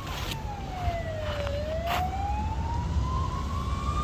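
Fire-rescue vehicle's siren wailing: one slow wail that falls in pitch over the first second and a half, then rises slowly again. A steady low rumble runs underneath.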